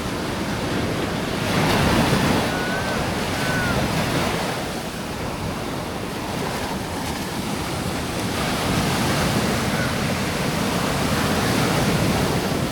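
Bay of Bengal surf breaking and washing up the beach, a steady rush that swells loudest about two seconds in and then eases.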